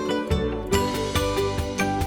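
Background music led by plucked strings with a steady beat; the arrangement fills out, brighter and fuller, about three quarters of a second in.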